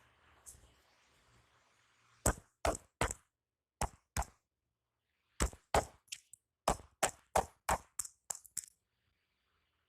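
Hands striking in percussive massage strokes: three sharp slaps about two seconds in, a pair, then a faster run of about a dozen slaps in quick succession.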